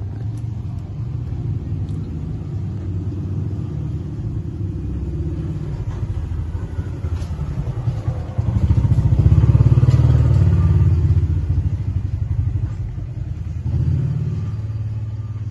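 A motor engine running, a low rumble that swells louder about eight seconds in and then eases off.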